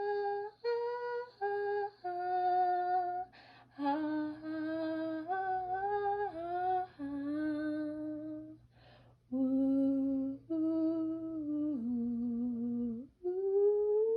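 A voice humming a string of held notes, stepping up and down in pitch, with a short break about nine seconds in and a rising slide into a long held note near the end.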